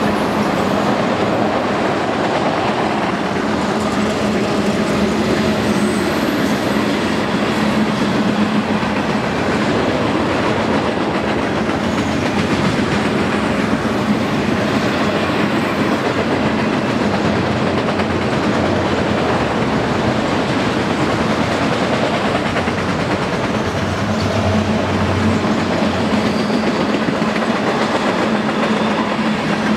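Freight cars of a long mixed freight train rolling past: a steady rumble of steel wheels on the rails, with no horn and no locomotive heard.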